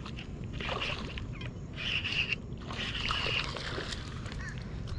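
A hooked bass splashing and thrashing in the shallows at the bank. Short buzzy animal calls repeat in the background, each about half a second long.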